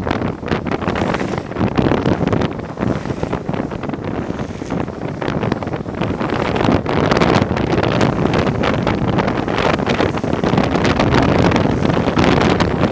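Rushing wind buffeting a fast-moving microphone, over the rumble of longboard wheels rolling on coarse asphalt during a downhill run. It grows louder about halfway through as speed builds.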